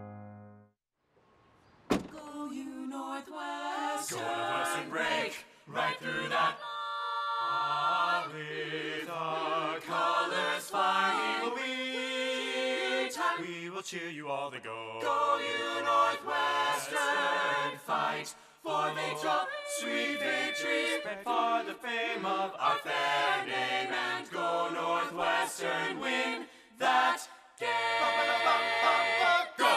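A group of voices singing a cappella, starting about two seconds in after a short silence.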